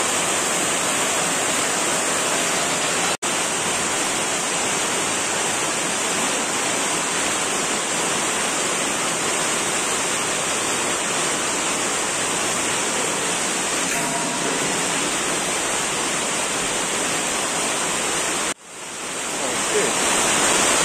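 A steady rushing noise with no clear pitch. It drops out abruptly about three seconds in and again near the end, where it fades back up.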